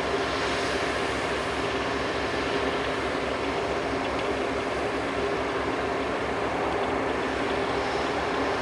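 Two BNSF diesel-electric locomotives running at the head of a coal train, a steady engine drone with a low, even throb and a held hum.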